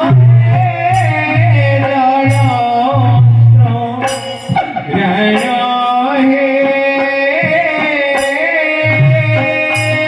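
Devotional folk-theatre song: a voice singing a melody over sustained accompaniment and percussion, with sharp strikes every second or two.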